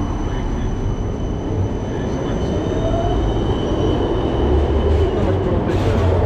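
Electric tram at a stop close by, its running gear and electrics giving a steady low rumble with a thin steady high whine over it. A brief hiss comes near the end.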